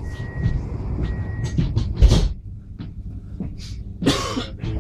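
Inside a Stadler Flirt Type 74 electric train: a high, steady beeping tone, about half-second beeps repeating, stops about a second and a half in. Two short loud bursts of noise follow, about two and four seconds in, over the train's low rumble.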